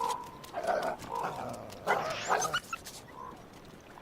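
Coyotes whining and yipping in a string of short wavering calls that fade in the last second or so.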